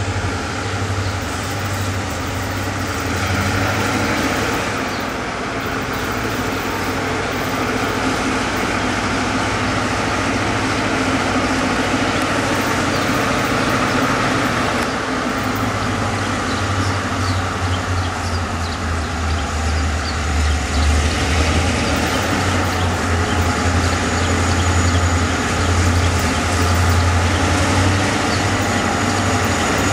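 Pair of South Shore EMD GP38-2 diesel locomotives, 2004 and 2007, running as they haul a freight train toward the listener. A steady low engine hum with wheel and rail noise slowly grows louder as the train nears.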